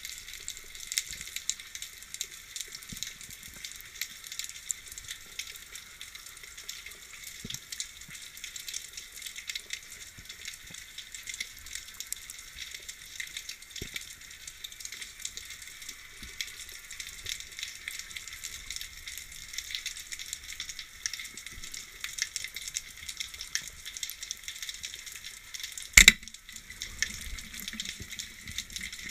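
Underwater ambient noise picked up by a camera in its housing: a steady high crackling and fizzing made of countless tiny clicks. One sharp, loud click stands out about three seconds before the end.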